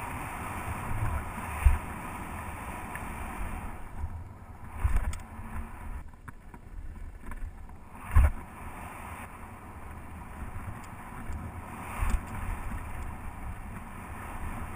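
Wind rushing over the microphone of a mountain bike rider's action camera, with tyres rumbling on a dirt singletrack and dull thumps from bumps on the trail. The louder thumps come about 2, 5, 8 and 12 seconds in, and the rush eases briefly between about 6 and 8 seconds.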